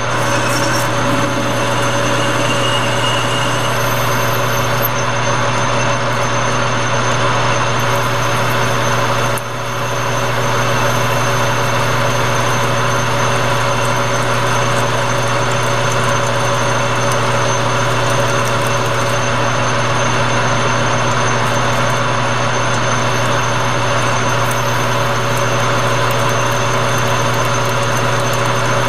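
Metal lathe running steadily at speed while a twist drill in the tailstock chuck bores into the spinning workpiece, drilling the hole for a 1/8 pipe tap. The sound dips briefly about nine seconds in, then carries on steady.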